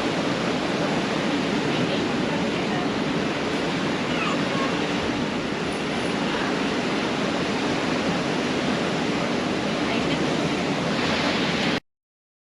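Pacific Ocean surf breaking and washing on a beach, a steady rush of water that cuts off suddenly near the end.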